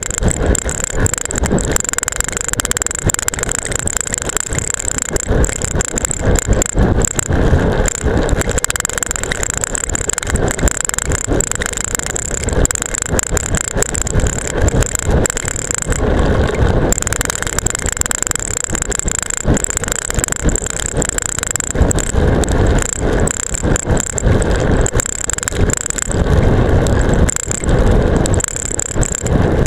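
Seatpost-mounted camera rattling hard in its strap mount on a bicycle descending at speed, with a steady rush of wind and tyre noise on rough pavement.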